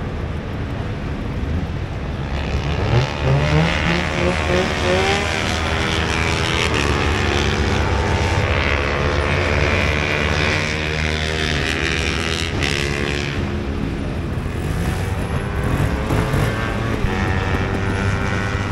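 Trials motorcycle engines running and being revved. The pitch rises quickly several times around three to five seconds in, then settles into a steadier drone.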